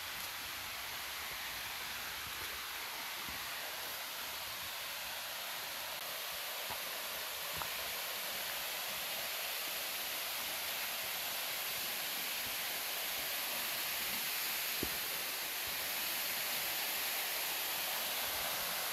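Steady rushing of a waterfall and its stream, an even hiss that grows a little louder near the end.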